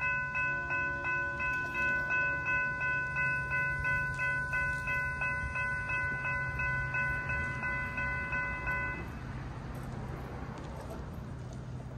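Railroad grade-crossing warning bell ringing at about two strikes a second while the crossing gates lower. It stops about nine seconds in, once the gates are down.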